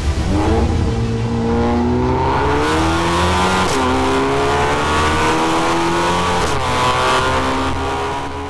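VW Golf Mk7 GTI's turbocharged four-cylinder, heard through an MST E.V.C catback exhaust, accelerating hard. Its note climbs, drops at an upshift about three and a half seconds in, climbs again, drops at another shift about six and a half seconds in, then fades out at the end.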